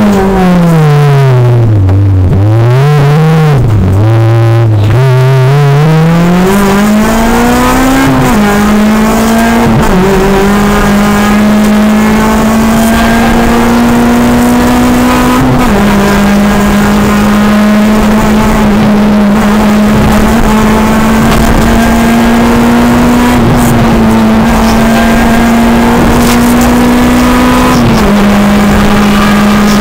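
Honda Civic Type R rally car's four-cylinder engine, heard from inside the cabin at full stage pace. In the first few seconds the revs drop and rise twice, as through a slow corner. It then pulls up and holds high revs, with a small dip in pitch at each of about four gear changes.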